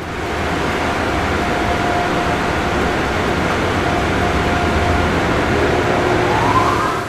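A cartoon vehicle sound effect running steadily as a loud, dense rumble, with a whine rising in pitch near the end.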